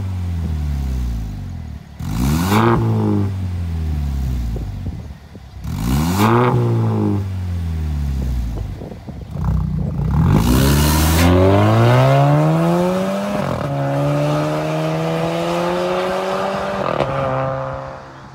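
Volvo XC60 T6's turbocharged and supercharged 2.0-litre four-cylinder, breathing through a Fi Exhaust valved cat-back with sport 200-cell downpipes. It is revved twice in short blips that rise and fall, then pulls away under hard acceleration, the pitch climbing and dropping at two upshifts before fading away.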